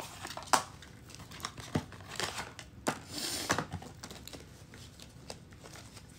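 Tarot cards being shuffled and handled: scattered sharp card snaps and slaps, with a short rustle about three seconds in.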